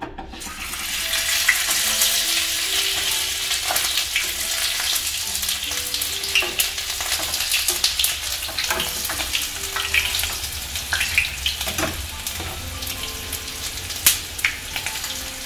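Rolled tortilla tacos frying in hot oil in a skillet: a steady sizzle that swells over the first second or two as they go into the oil, with a few sharp clicks along the way.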